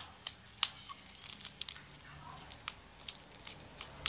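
Scissors snipping: an irregular run of short, sharp cuts.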